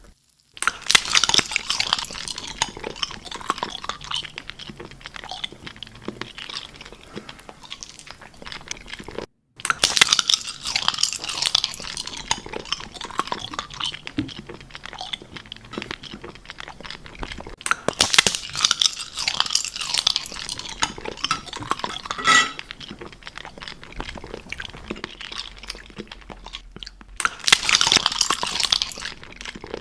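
Crunching and clinking eating sounds, loudest in four bursts about eight seconds apart, with quieter crackling between them.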